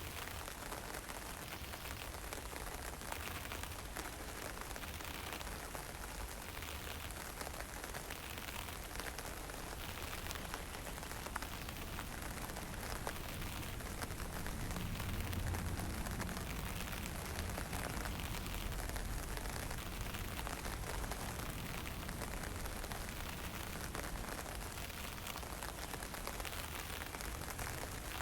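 Fine drizzle and wind making a steady, even hiss. A low wind rumble swells for a few seconds in the middle.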